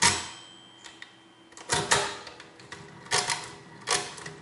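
Facit TK pinwheel mechanical calculator being cranked through about four turns during a long division, each turn a short clatter of the pinwheels and carry mechanism. The first turn is the loudest, and a thin faint tone rings on for about a second after it.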